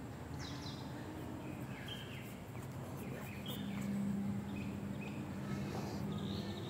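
Faint outdoor background of scattered short bird chirps. A low steady hum joins about halfway through and holds for a few seconds.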